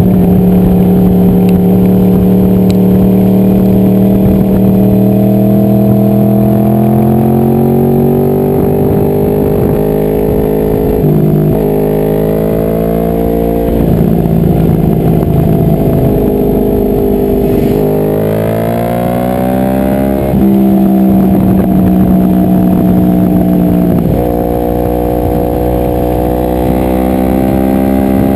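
Inline-four sportbike engine heard on board at speed on a race track: the revs hold steady for stretches, then climb and drop back sharply several times as the rider shifts gears.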